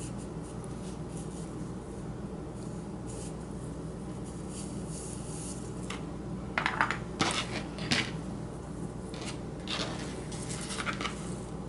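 Light handling noises over a steady low hum: rustles and small taps from stiffened grosgrain ribbon curls and a wooden dowel being handled and laid on a cutting mat, in two short clusters around the middle and near the end.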